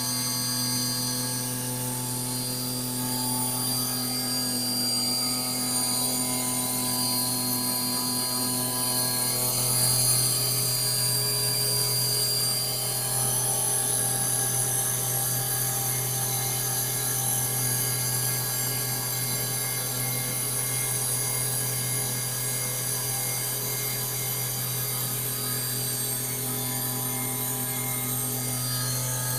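CNC router spindle running as its cutter mills a stone sculpture: a steady low hum with a high hiss that hardly changes.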